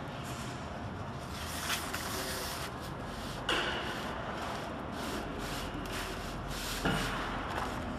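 Clear plastic packaging film rustling and crinkling as it is handled and drawn over steel rollers, with a few sharper crackles, one about three and a half seconds in and one near seven seconds.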